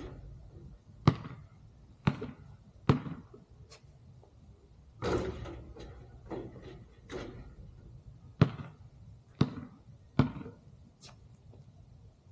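Basketball bouncing: three sharp bounces about a second apart, a longer scuffing sound, then three more bounces about a second apart.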